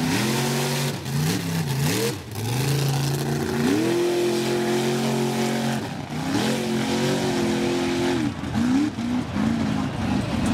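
Mud-racing truck's engine revving hard as it pulls through the mud. The pitch climbs quickly and holds high several times, with a long high stretch in the middle and short quick revs near the end, over a steady rushing noise.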